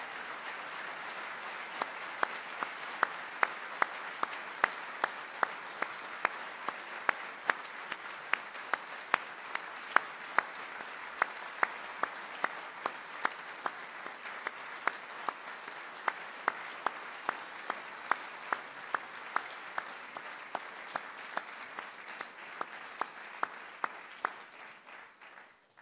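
An audience applauding steadily, with one close, loud clap standing out about two or three times a second in an even rhythm. The applause cuts off abruptly just before the end.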